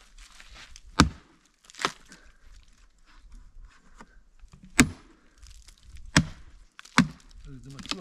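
A heavy blade chopping into the dry, dead wood of a tree trunk: five sharp strikes at uneven intervals.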